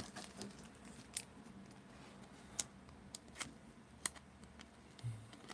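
Trading card being slid into a clear soft-plastic penny sleeve by hand: faint plastic crinkles and a few sharp clicks about a second apart.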